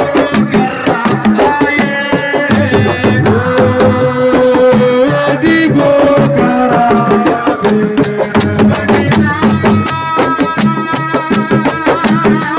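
Live assiko band music: fast, dense hand-drum and rattle percussion with a melodic line of held and gliding notes over it.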